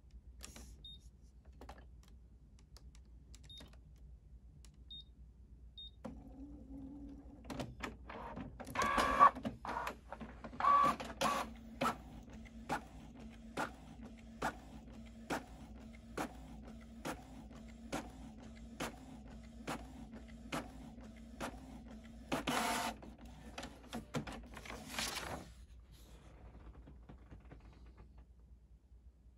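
Canon PIXMA MG6220 inkjet printer printing a nozzle check page. A few short beeps come first, then the printer starts up suddenly about six seconds in. It runs with a steady motor hum and a regular click roughly three times every two seconds, with louder paper-feed noise near the start and end, and stops about four seconds before the end.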